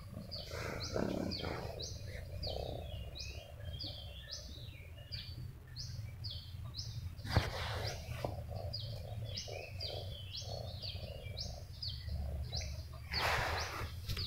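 A bird calling over and over, short high chirps at about two a second, above a low steady hum. A sharp click sounds about halfway through, and there are brief rustles about a second in and near the end.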